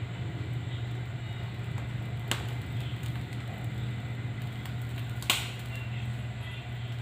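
A steady low mechanical hum, with two sharp knocks, one about two seconds in and one about five seconds in.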